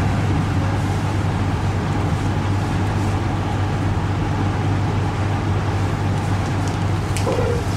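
Steady drone of a laminar flow cabinet's blower, with a strong low hum under an even rush of air. A few light clicks come near the end.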